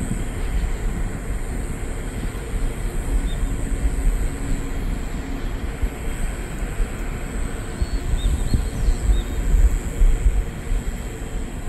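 Wind buffeting the microphone: an uneven low rumble that rises and falls in gusts, over a steady faint high-pitched drone, with a few faint short chirps around the middle.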